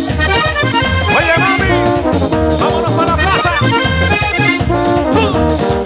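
Instrumental passage of a fast vallenato puya, led by diatonic button accordion playing quick runs over a steady bass beat and percussion.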